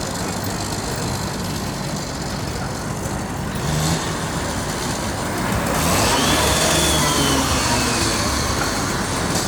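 Motor vehicle engine running amid city street noise, getting louder about six seconds in, with a faint high whine that falls slowly in pitch.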